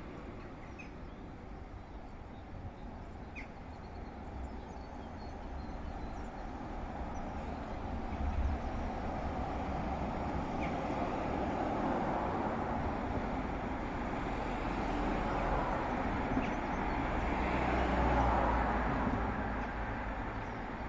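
Steady street traffic noise that grows louder through the middle and swells to a peak near the end as a vehicle passes, with a few faint, brief bird chirps.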